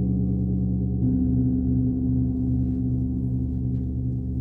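Gong ringing with a rich, sustained tone, struck again about a second in with a heavy, padded yarn-wound wind gong mallet. The stroke has a soft attack and a low, full sound, and the low tones waver in a slow pulse.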